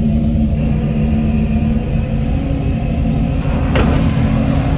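A large motor yacht's engines running at low docking speed, a steady low rumble with a hum. A couple of faint knocks come about three and a half seconds in.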